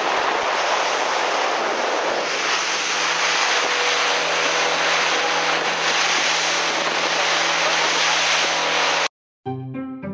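Outboard-powered fishing boat running at speed: a steady engine drone under loud rushing wind and water. It cuts off abruptly about nine seconds in, and after a brief silence music begins.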